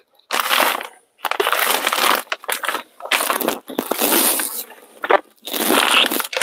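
Plastic packaging crinkling and rustling as bags of ingredients are rummaged through, in several irregular bursts with short pauses between them.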